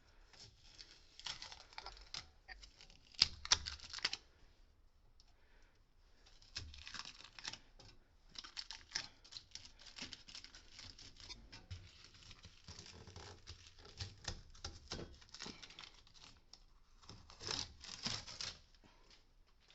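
Tape being peeled and torn off the first joint of a B-vent flue pipe above a furnace: crackly tearing and crinkling in irregular bursts, loudest about three to four seconds in and again near the end.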